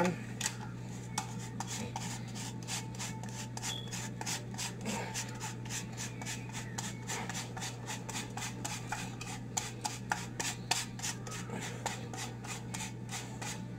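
A block of Parmesan cheese scraped against a handheld flat grater in rapid, even rasping strokes, several a second, over a steady low hum.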